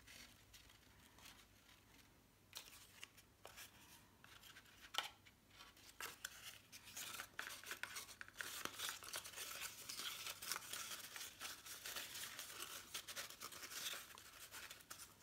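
Cardstock paper petals rustling and crinkling as hands bend, press and layer them together. The sound is faint and scratchy, with scattered clicks at first, and becomes a busier rustle from about six seconds in.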